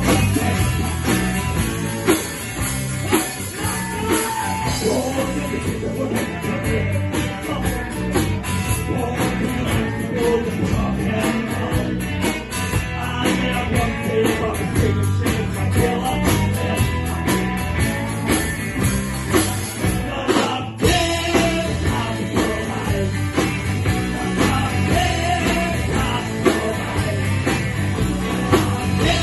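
Rock band playing a blues-rock song: guitar, drum kit and a jingling tambourine-like percussion, with a very brief break in the music just after two-thirds of the way through.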